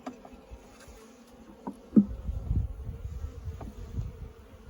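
Honeybees buzzing around an open hive, a steady hum, with a few sharp knocks, the loudest about two seconds in, followed by a low rumble.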